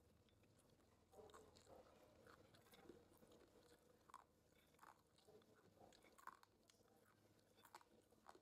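Faint close-up chewing of crunchy cashew nuts and crispy fried green peas, with short crackles of crunching about once or twice a second.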